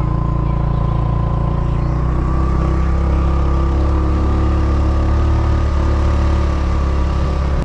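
Motorcycle engine running steadily while riding, its pitch rising a little about two to three seconds in.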